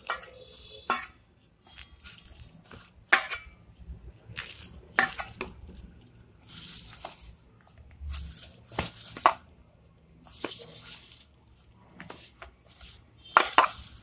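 A hand working maida flour into samosa dough in a stainless steel bowl: repeated rustling swishes of the crumbly dough rubbed against the steel, with several sharp metallic clinks against the bowl, the loudest about three seconds in and near the end.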